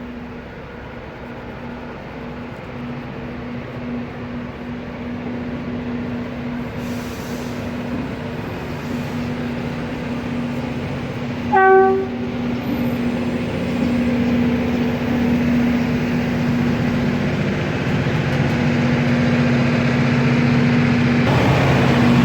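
Loram rail grinder train running, a steady engine drone growing louder as it approaches. About halfway through it gives one short horn toot.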